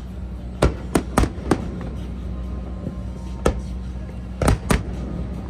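Fireworks bursting overhead: about seven sharp bangs at uneven spacing, four in quick succession about a second in and a close pair near the end.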